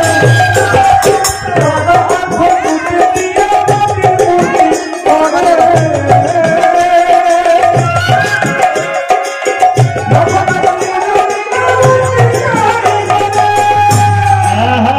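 Bengali kirtan instrumental interlude: a harmonium carries the melody over a two-headed barrel drum played by hand, whose deep bass strokes fall about once a second.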